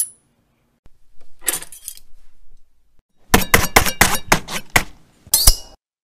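Knife sound effect: a short, airy swish of a blade, then a quick run of about a dozen sharp metallic clinks with a ringing tone, and one more ringing clink near the end.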